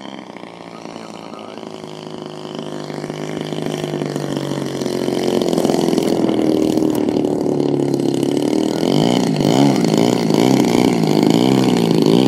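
Radio-controlled model tow plane's engine running, growing louder as the plane comes in to land and taxis toward the pilots. From about two-thirds of the way through its pitch wavers up and down repeatedly.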